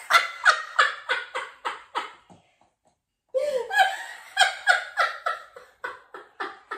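A man and a woman laughing hard together in rapid 'ha-ha' bursts, about three or four a second. The laughter breaks off briefly partway through, then picks up again.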